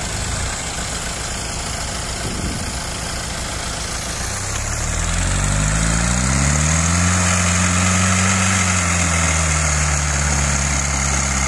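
Small home-built tractor's engine running at low revs, then revving up about four and a half seconds in and held high as the tractor pushes through soft mud, easing back a little near the end.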